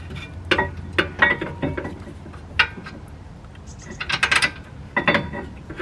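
Metal clinks and knocks of tools and brake hardware being handled while the rear caliper bracket is fitted, with a quick run of rapid clicks about four seconds in.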